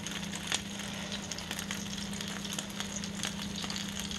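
Barbecue chicken sizzling on the hot grill plate of an open Ninja Foodi Smart XL Grill, an even crackle with scattered sharp pops, over a steady low hum.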